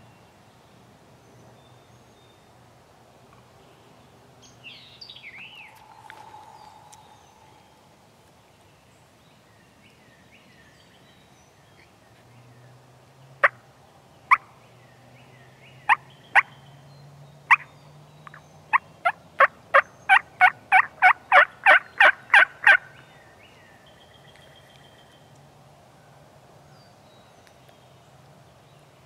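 Wild turkey calling: a few sharp single clucks spaced out, then a quick even run of about fifteen notes at roughly four a second that stops abruptly two-thirds of the way through. Faint birdsong and a brief warbling bird call sit beneath it.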